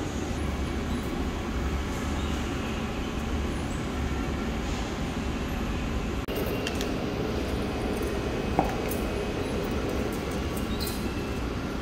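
Steady low hum and hiss, broken by a brief sharp drop about six seconds in. About two and a half seconds after the drop comes a single short beep as a candy choice is tapped on a vending machine's touchscreen.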